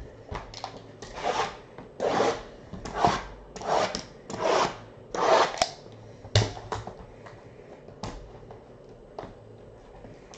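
A run of about seven rhythmic rustling swishes, then a sharp knock and a few light taps as a hand handles shrink-wrapped cardboard boxes of trading cards.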